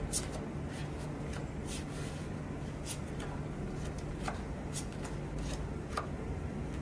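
Playing cards being dealt by hand onto a felt table: about ten short, sharp card snaps and slides at an irregular pace, over a steady low hum.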